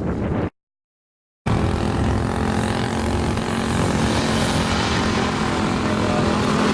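Car engine running steadily and loudly, a droning note that holds its pitch, after a second of dead silence from an edit cut near the start.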